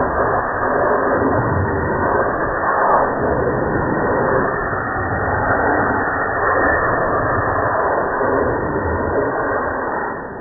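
Dog-wash blow dryer blasting a steady rush of air, played back at slow-motion speed.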